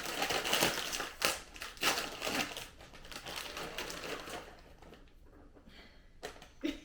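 Crinkling plastic snack bag of Cheetos being handled and torn open, loudest in the first few seconds and then dying down.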